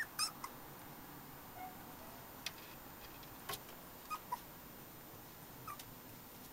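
Bedlington whippet puppies play-fighting, giving several brief high-pitched squeaks, the loudest right at the start, with a couple of sharp clicks in between.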